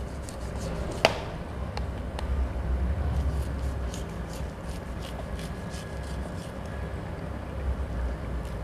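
Chef's knife cutting kernels off an ear of sweet corn against a plastic cutting board: a sharp knock about a second in, then faint crisp ticks and scraping as the blade runs down the cob. A steady low hum lies underneath.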